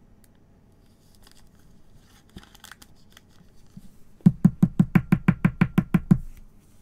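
Faint rustling of cards and plastic sleeves. About four seconds in, a rapid run of about fifteen light knocks, roughly eight a second, lasting two seconds: a rigid plastic toploader tapped edge-down on the table to settle the card inside.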